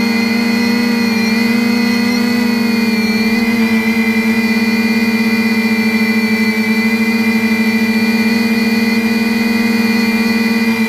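3DR Iris+ quadcopter's electric motors and propellers hovering: a loud, steady buzzing whine with a slight flutter.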